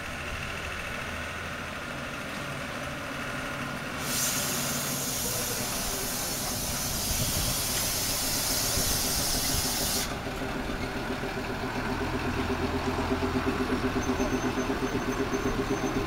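Small narrow-gauge diesel locomotive running slowly past with its open passenger cars: steady engine running, with a loud hiss for several seconds midway. Near the end a rhythmic beat of about three to four pulses a second grows louder as the cars roll by.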